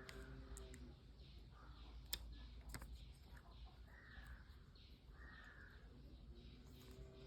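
Near silence: a faint low background hum with a couple of light clicks a few seconds apart, and several faint short bird calls in the distance.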